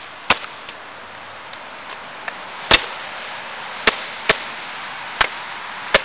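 Sharp snaps and clicks of Daisy Airstrike 240 spring airsoft pistol shooting, with BBs striking a plastic cup and target box: about six clicks spaced irregularly, the loudest a little under three seconds in.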